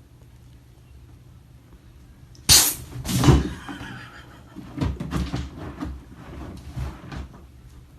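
A sudden loud bang about two and a half seconds in, a second bang a moment later, then a run of lighter knocks and clatters, like a cupboard door or household objects being banged about.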